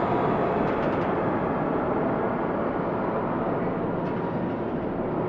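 Abandoned factory ambience: a steady, dull wash of noise inside a large empty industrial space, with a faint hum running under it. A few faint ticks come about a second in and again near the end.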